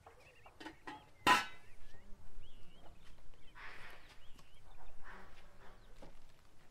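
Handling of cookware: one sharp, ringing metal clank about a second in, then softer scraping and shuffling, with small birds chirping in the background.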